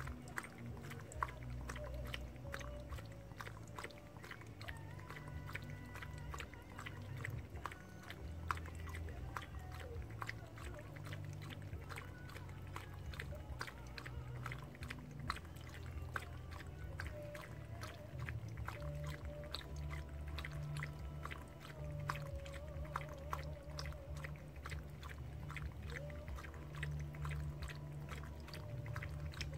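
Shih Tzu lapping water from a bowl: a steady run of small wet tongue clicks and slurps.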